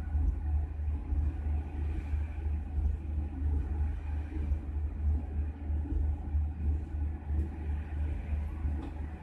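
Steady low rumble of a passenger train pulling slowly out of a station, heard from the rear end of the last carriage.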